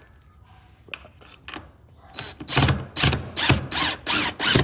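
A long screw being driven into a door lock's mounting, heard as a run of short, even strokes about two a second that starts about two seconds in.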